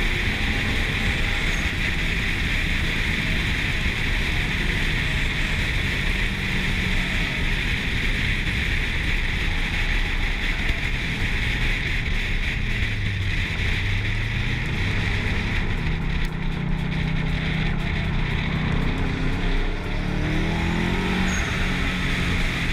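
Wind rushing over an action camera mounted on the outside of a car at speed, with the low note of a 2005 Subaru Impreza WR1's turbocharged flat-four engine underneath. The engine pitch drops about thirteen seconds in and climbs again near the end.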